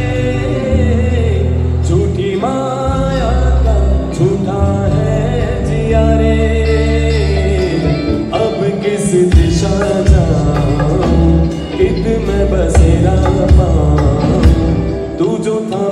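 Live band with a male lead singer performing a Hindi song medley over amplified speakers, with heavy bass and steady drum hits.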